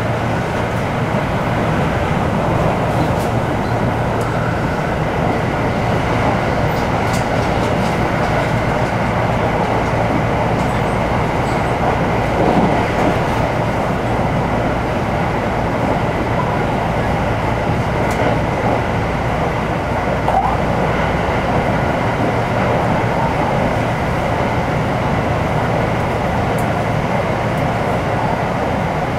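Steady running noise heard inside the passenger cabin of a JR West 225-series electric train at high speed: a continuous rumble of wheels on rail and of air rushing past.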